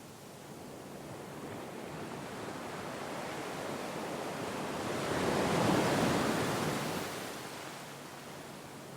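Gentle sea wave on the shore: a slow swell of surf noise that builds, peaks about two-thirds of the way in and then recedes.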